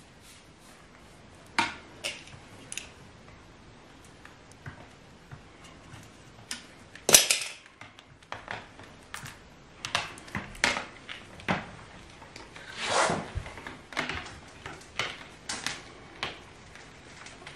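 Irregular clicks and light knocks from a slatted wooden floor grating and a length of plastic tubing being handled, with one sharp click about seven seconds in and a short scrape near thirteen seconds.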